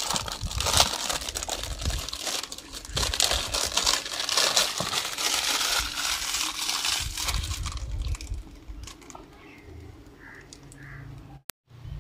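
Clear plastic packaging crinkling and crackling as it is handled and pulled open, busy for about eight seconds and then much quieter.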